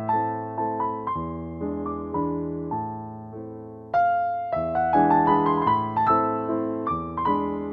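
Background music: a soft piano melody played note by note. The notes fade, and a louder phrase begins about four seconds in.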